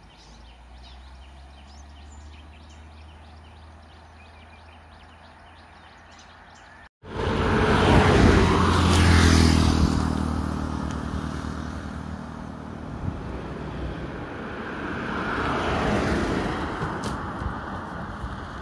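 Quiet outdoor background with a low hum for about seven seconds, then after an abrupt cut a nearby vehicle engine running loud, its pitch falling as it eases off, with a second swell a little after three quarters of the way in.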